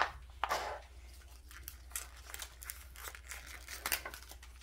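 Thin paper wrapper from a toy mini figure being crumpled and pulled apart by hand: a run of short, irregular rustles and crackles, with a louder crackle about half a second in.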